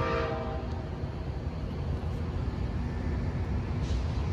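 Low, steady rumble of a train, with a brief pitched tone right at the start.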